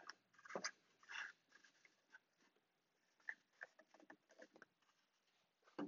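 Near silence, broken by a few faint taps and scrapes of wood pieces being handled, with a short knock near the end.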